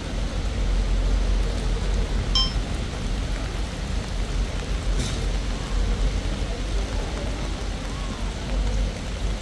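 Steady rain falling on wet stone paving, with a low rumble underneath. A brief high chirp comes about two and a half seconds in, and a sharp tick about five seconds in.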